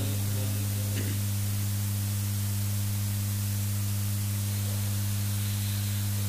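Steady low electrical mains hum with hiss from the public-address sound system, with no voice on the microphone.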